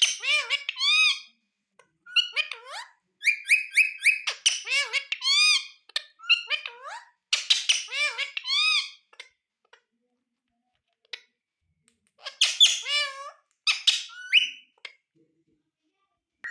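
Ringneck parakeet giving high-pitched chattering calls in quick strings of short notes; it falls silent for about two seconds near the middle, then starts again.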